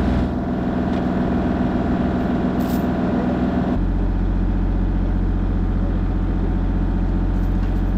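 Diesel engine of a compact construction machine (mini excavator or track loader) running steadily. About four seconds in, its low-end note changes abruptly.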